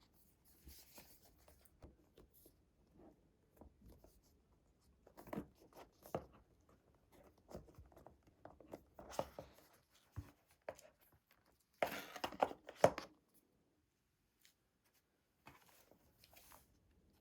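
Paper and cardboard packaging being handled and torn open: scattered rustles, tearing and soft knocks, loudest in a burst about twelve seconds in.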